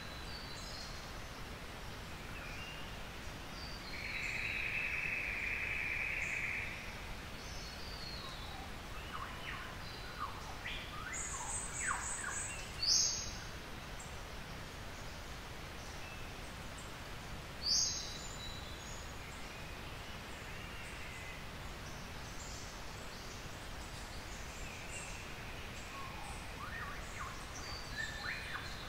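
Forest dawn chorus: various birds calling on and off over a steady background hiss. About four seconds in there is a buzzy call lasting a couple of seconds, and near the middle two loud, sharp calls about five seconds apart.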